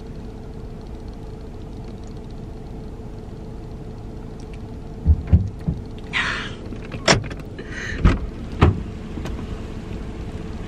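Car door being opened from outside: a few low knocks, a short rustle, then three sharp clicks of the handle and latch, over a steady low hum inside the car's cabin.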